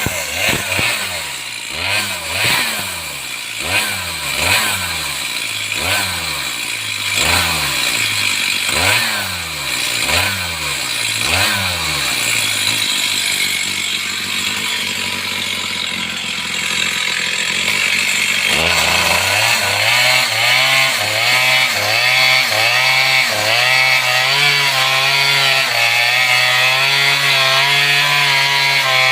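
Stihl two-stroke chainsaw revving up and down about once a second, then from about two-thirds of the way in running steadily at high speed as it cuts into a tree.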